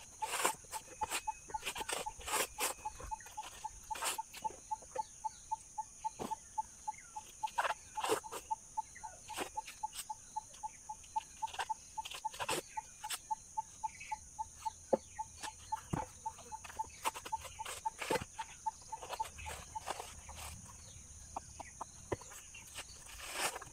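Coconut husk being split and levered off on an upturned hoe blade: irregular sharp cracks and rips of fibrous husk. Behind it a steady pipping call repeats about three times a second, stopping about three-quarters of the way through, over a constant high insect-like drone.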